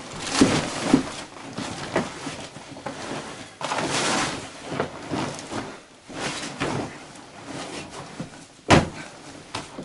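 Rustling and knocking of a folded inflatable boat being pushed and squeezed into its carry bag, which is too small for it. One sharp bang near the end.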